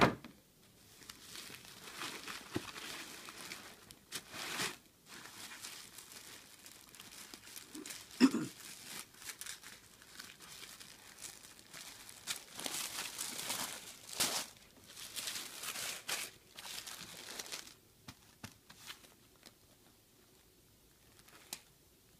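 Tissue paper rustling and crinkling in bursts as hands unfold the wrapping inside a cardboard gift box, with a sharp knock at the very start and a louder one about a third of the way in. It goes quieter over the last few seconds.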